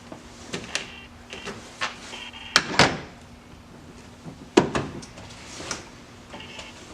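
Scattered clicks and knocks of parts and tools being handled, with two louder clunks, one about two and a half seconds in and one about four and a half seconds in.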